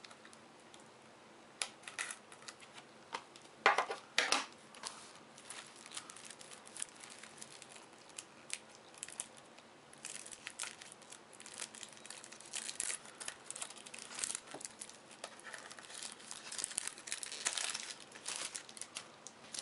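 Cellophane shrink-wrap being torn and crumpled off small cardboard card-pack boxes by hand: irregular crinkling and tearing with sharp crackles, a few loud ones about four seconds in and busier crinkling in the second half.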